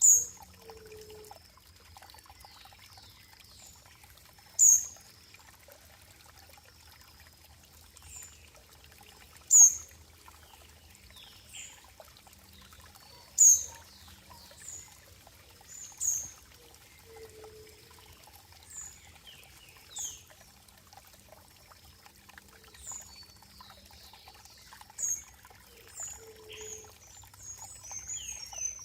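Running water trickling and pouring, with short high-pitched falling chirps every few seconds, the loudest about every four to five seconds.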